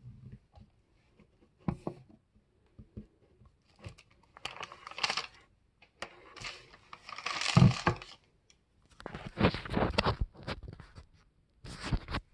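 A sheet of ironing paper being peeled off fused Hama beads and rustled, in several crinkly bursts with light taps and a dull thump from handling the plastic pegboard.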